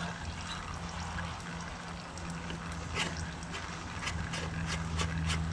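Oil trickling and dripping, with scattered sharp drip ticks over a steady low hum.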